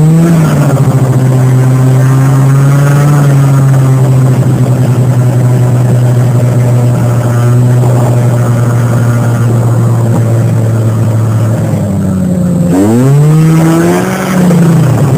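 1989 Arctic Cat Jag 340 snowmobile's two-stroke engine running at a steady pace under way, then about twelve seconds in it drops off and revs up again, easing back just before the end.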